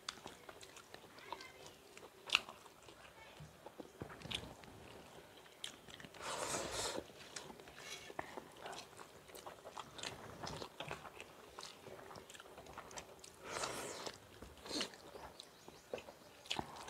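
Two people eating rice and egg bhurji with their hands from steel plates: chewing, with small clicks and soft rubbing as the rice is mixed on the plates. A few louder stretches about six seconds in and near fourteen seconds.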